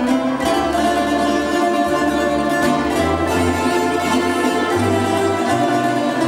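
Tamburica orchestra playing an instrumental passage: many plucked tamburicas carrying the melody and chords over a bass line that steps from note to note about once a second.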